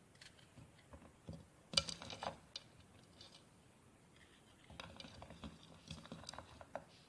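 Knife cutting a small onion into small pieces: faint, irregular cutting clicks and taps, with a louder cluster about two seconds in and another run of taps a little past the middle.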